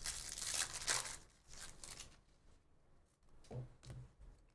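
Topps baseball cards being flipped and shuffled by hand, a papery rustle of card stock that is busiest in the first couple of seconds and then eases off.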